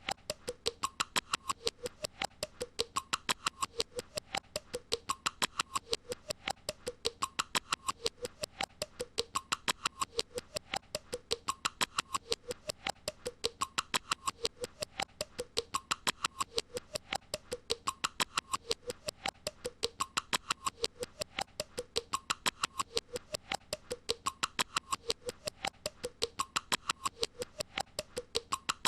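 A short sound loop repeated over and over, about every two seconds: rapid, evenly spaced clicking under short, squeaky high tones.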